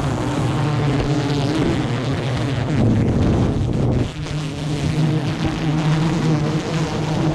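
Swarm of wild honeybees, stirred up by smoke, buzzing around their open hanging comb in a loud, steady drone close to the microphone.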